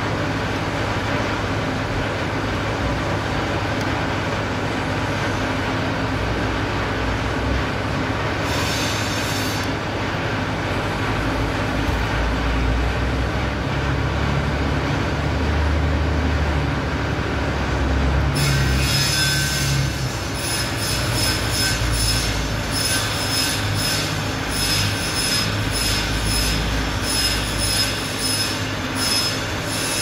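Steady low background rumble. About two-thirds of the way through, a fast run of high, metallic squeals and clicks joins it.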